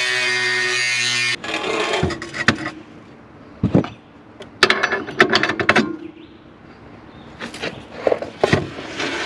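Background music that cuts off abruptly about a second in, followed by irregular clanks, knocks and scraping of the steel hitch being handled and fitted to the roller.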